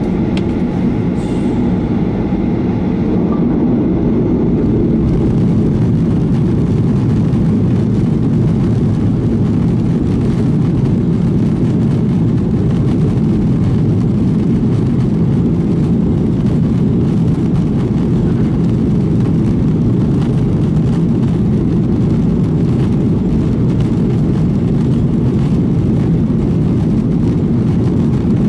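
Cabin noise aboard a Boeing 737: a steady, loud rumble of jet engines and airflow, growing a little louder over the first few seconds and then holding level.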